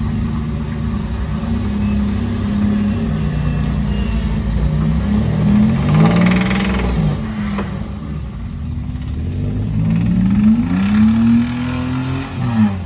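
Off-road truck engine running and being revved: the pitch climbs and falls back about six seconds in, then climbs again about ten seconds in and holds before dropping near the end.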